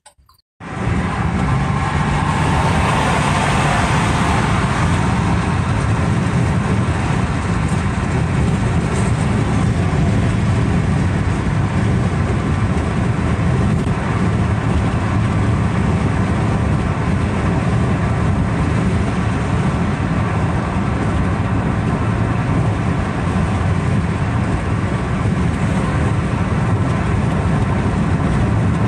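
Steady road and wind noise inside a car cabin at highway speed, starting just under a second in and holding level throughout.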